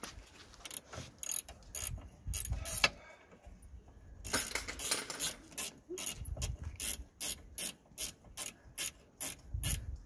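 A 13 mm spanner working the bottom bolt out of a rear brake caliper: a string of sharp metallic clicks, a dense cluster about four seconds in, then about three clicks a second through the second half.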